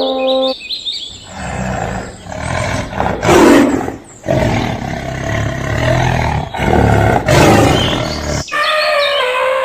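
A large animal giving deep, rough roars, about four in a row, the second the loudest. A different, higher pitched call starts near the end.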